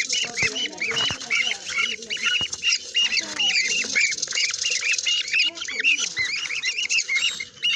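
Many small parrots chattering together: dense, overlapping short high chirps and squawks with no break.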